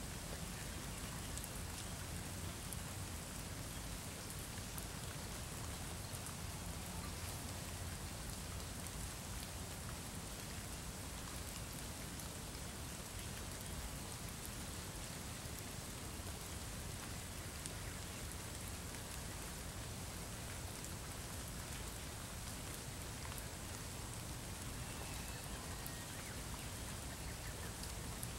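Steady rain falling on wet stone paving, puddles and leaves, with many small drop ticks.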